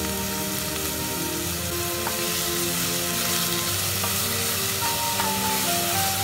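Sliced onions sizzling as they sauté in a stainless steel pan, stirred with a spatula. Background music plays underneath.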